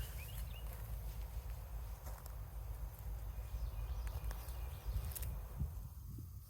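Digging and rustling in garden soil while potatoes are being harvested: scattered small scrapes and clicks of soil and plants over a fluctuating low rumble.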